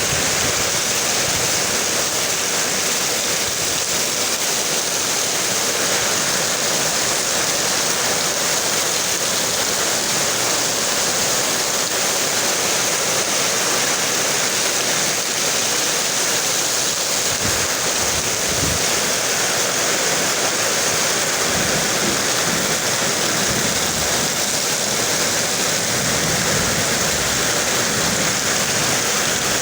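Heavy rain pouring down in a steady dense hiss, with wind gusting.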